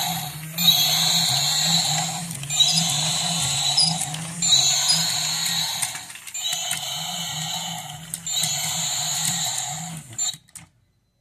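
Misco Toys walking dragon toy playing its electronic sound effects through a small speaker: clips about two seconds long, one after another with short breaks, over a low pulsing hum. The sound cuts off suddenly near the end.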